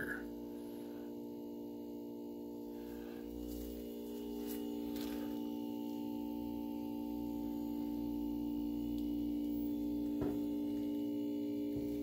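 Steady electrical hum from mains-powered equipment, a stack of even tones over a low rumble, with a couple of faint clicks near the end.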